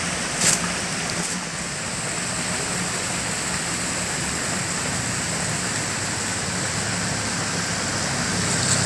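Small stream running steadily through a roadside culvert, an even rushing water noise, with a single short click about half a second in.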